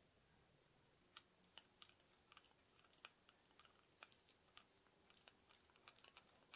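Diagonal side cutters snipping the excess wire leads of components soldered into a circuit board: a quick, irregular run of sharp little clicks, several a second, starting about a second in.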